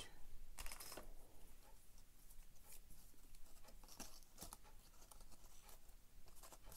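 Faint paper rustling and a few light taps as small paper cutouts are handled and pressed into place on glue.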